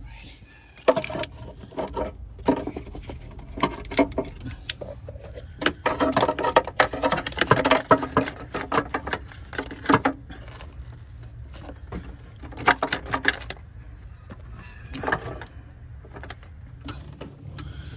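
Irregular metallic clinks and clanks as a long serpentine belt tool levers the engine's belt tensioner and the belt is worked loose. The clatter is densest about six to ten seconds in, with a low steady hum underneath.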